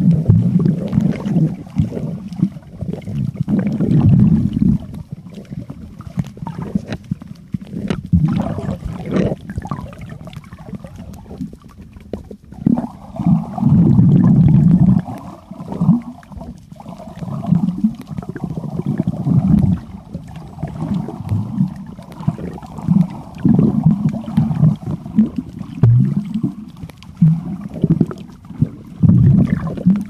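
Muffled underwater noise from a camera held beneath the surface: low rumbling and sloshing of water that comes in uneven surges, with a hazier, higher rushing layer joining about twelve seconds in.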